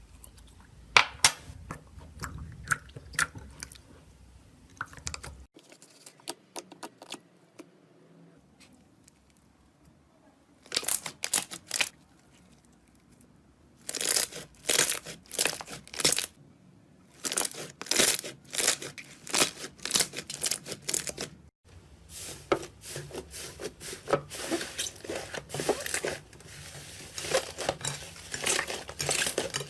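Slime being squeezed and stretched by hand, giving runs of crackling, popping clicks in bursts of a second or two, with quieter pauses between.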